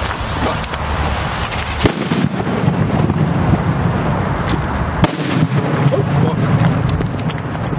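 Small ground firework going off, spraying sparks and smoke with continuous crackling, punctuated by two sharp cracks about two seconds in and about five seconds in.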